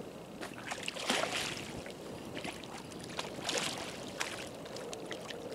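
Hooked catfish thrashing and splashing at the water's surface close to the bank, in irregular bursts, loudest about a second in and again about three and a half seconds in.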